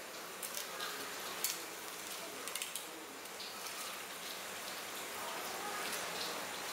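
Steady hiss of background noise in a fish-cutting room, with a few light, sharp clicks in the first three seconds as the tuna is handled on the wooden table.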